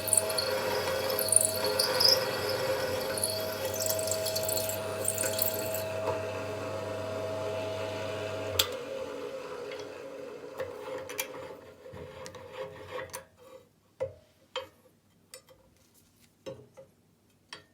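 Electric drill running while drilling a hole in an aluminium round bar: a steady motor hum with a scraping cutting noise. About halfway through it is switched off with a click and winds down over a few seconds. Scattered light knocks and clicks of the metal being handled follow.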